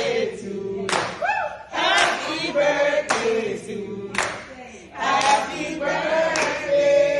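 A group of voices singing a birthday song in chorus, with hand claps keeping time about once a second.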